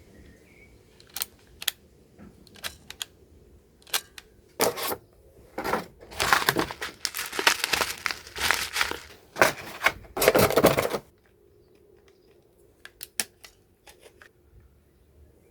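Packaging being handled and torn open: a few scattered clicks, then several seconds of loud crinkling and tearing from about six to eleven seconds in, and a few sharp clicks near the end.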